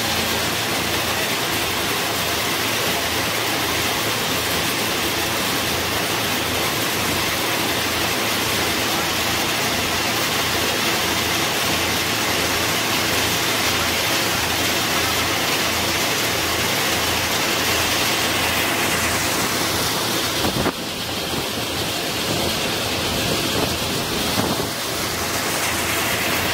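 Electric peanut shelling machine running: a loud, steady noisy rush with a low hum under it. About 20 seconds in, the sound switches abruptly to a slightly quieter machine noise.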